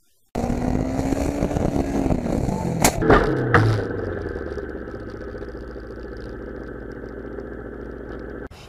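Dashcam sound of a car driving on a highway: engine and road noise with a tone that falls in pitch, broken by three sharp bangs close together about three seconds in as debris from the car ahead flies across the road. Steady road noise follows, cutting off suddenly near the end.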